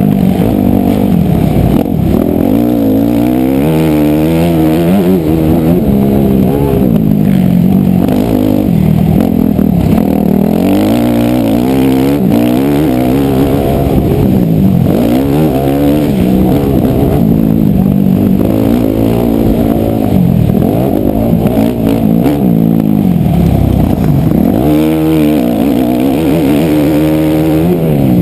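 Dirt bike engine heard close up from the rider's helmet, revving up and dropping back over and over as the bike accelerates, shifts and slows around a motocross track.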